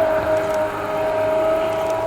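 V12 supercar engine running at high, nearly steady revs, giving one sustained pitched note.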